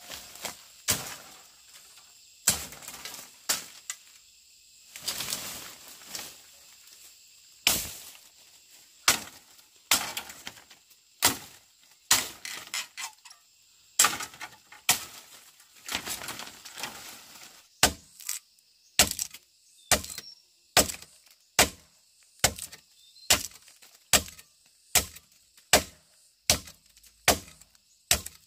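Repeated sharp chopping strikes on wood, irregular at first, then settling into a steady rhythm of a bit more than one stroke a second in the second half.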